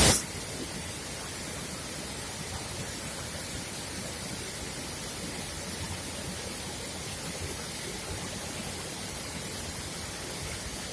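Waterfall rushing, a steady even roar of falling water that starts with a brief louder burst.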